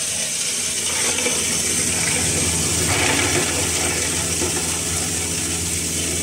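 Electric-motor-driven hammer mill running and grinding lumps of charcoal into powder: a steady motor hum under a gritty mechanical rattle, briefly louder around three seconds in.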